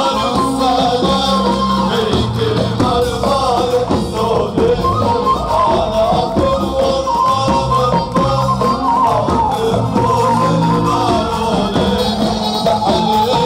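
Live band playing upbeat Lebanese folk music with a steady beat and a singing voice.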